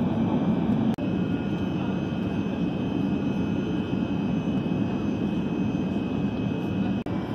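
Steady in-flight cabin drone of an Airbus A380, its Engine Alliance GP7200 turbofans and the rush of air over the fuselage heard from a passenger seat, with a faint high whine above it. The sound drops out for an instant twice, about a second in and near the end.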